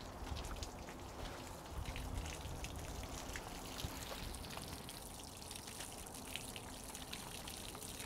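Water flushing out of the open anode-rod port of a Suburban RV water heater tank, pushed through by city water pressure to rinse out sediment, splashing and dripping down the outside of the camper with many small splatters.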